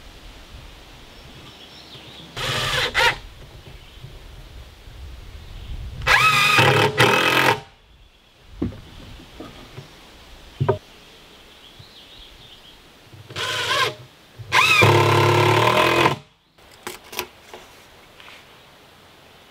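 Ridgid 18V cordless impact driver driving screws through a wooden trim strip into a plywood wall, in four runs: a short one then a longer, louder one, twice. A few sharp clicks fall between them.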